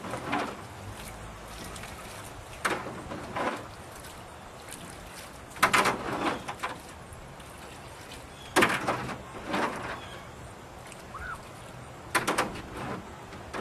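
Water splashing and sloshing in short bursts every two to three seconds as a rain-flooded rowboat is emptied with a sump pump and bucket, over a faint steady hum.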